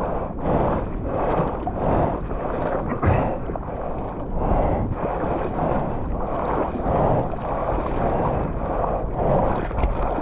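Ocean surf and wind noise on a GoPro microphone, swelling and falling in even pulses about every three-quarters of a second.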